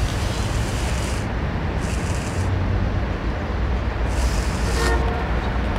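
A comb drawn through a mustache, three rasping strokes about two seconds apart, over a low steady rumble of city traffic.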